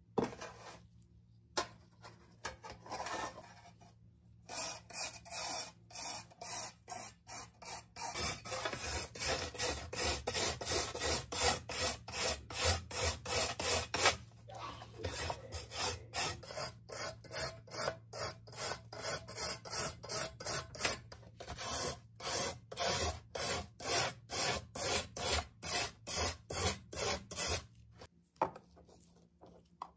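Rusted steel knife blade being scraped with an abrasive in steady back-and-forth strokes, about two a second, removing rust. A few scattered strokes come first, and the run stops shortly before the end.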